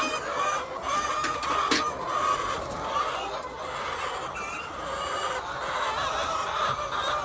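A flock of chickens clucking together, many overlapping calls at once, with a single sharp click a little under two seconds in.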